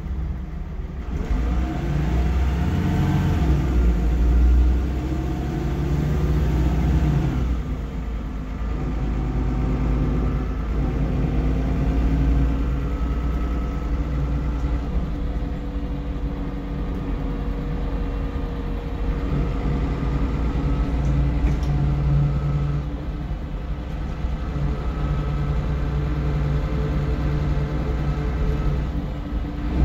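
MAN 18.240 bus's six-cylinder diesel engine heard from inside the passenger saloon, pulling the bus along with its note rising and falling through gear changes in the first several seconds. It then settles to steady running, with a thin whine added in the middle stretch.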